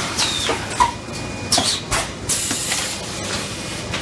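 Fully automatic PET bottle blow moulding machine running: a steady mechanical clatter broken by several short, sharp hisses of compressed air venting.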